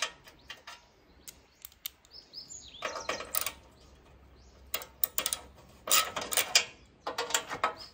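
Hand socket ratchet clicking in several short bursts, with small metal clinks of the socket, as the bolts on a wing mower's belt cover are loosened.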